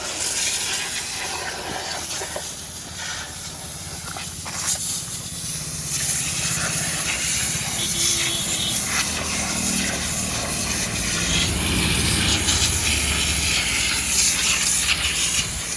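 Water spray hissing as a JCB 3DX backhoe loader is washed down, with a low engine hum underneath that grows stronger about six seconds in.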